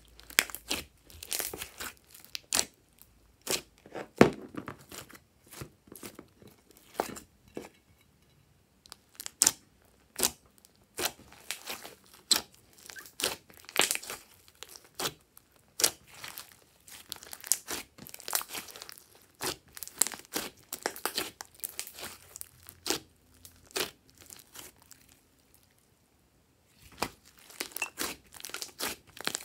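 Hands squeezing, folding and stretching a large mass of glossy slime, giving irregular wet clicks, pops and crackles as air pockets burst. The sound stops briefly about three-quarters of the way through, then resumes.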